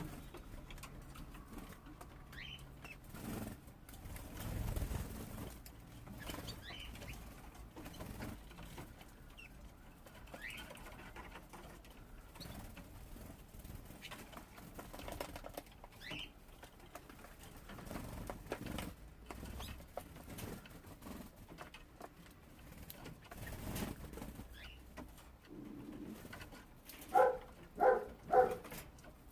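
Young canaries in a cage: scattered faint, short chirps over light rustling, fluttering and pecking. Near the end come three short, much louder pitched notes about half a second apart.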